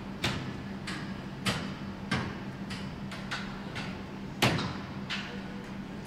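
AI-generated indoor-gym ambience: metal weights clanking at irregular intervals, about eight clanks, the loudest about four and a half seconds in, over a steady low hum.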